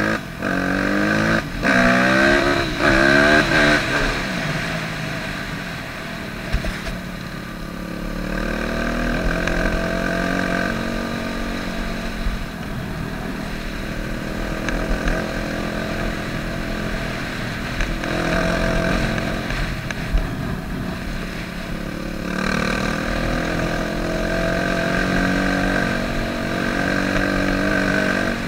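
Yamaha YZ250F's 250 cc four-stroke single-cylinder engine under way, heard from the rider's seat. It revs up through the gears in quick shifts during the first few seconds, then runs on at changing throttle, its pitch rising and falling.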